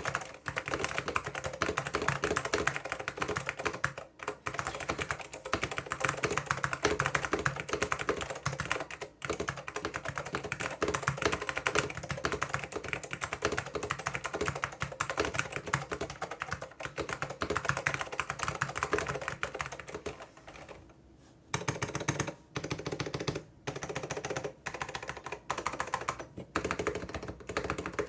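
Apple Extended Keyboard M0115 with orange Alps switches and lubed stabilizers being typed on fast: a dense, continuous run of key clicks, broken by a short pause about three-quarters of the way through and a few brief gaps after it.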